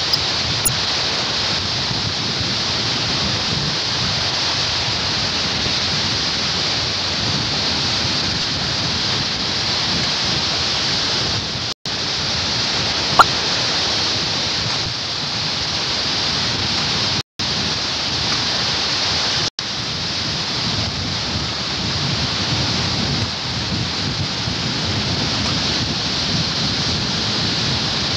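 Steady rush of surf breaking on a beach, heard through the hissy audio of old video tape. A single sharp click falls near the middle, and the sound drops out to silence three times briefly in the second half.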